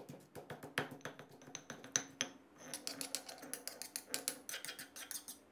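Stone pestle pounding a herb and shrimp-paste curry paste in a granite mortar, a run of irregular knocks. After a brief pause about halfway, a metal spoon scrapes and clicks against the stone bowl as the paste is scooped out.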